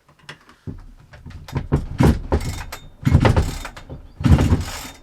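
Husqvarna 365 X-Torq chainsaw's recoil starter being pulled three times in a row. The engine is not firing: the saw is failing to start.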